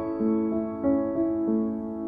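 Background music: a gentle piano melody, single notes struck about every third of a second and left to ring.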